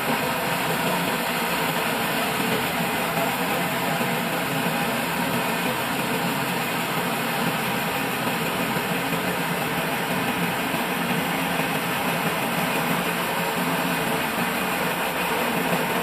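Old band sawmill running steadily as its band blade saws lengthwise through a dry log, a dense, even machine noise throughout.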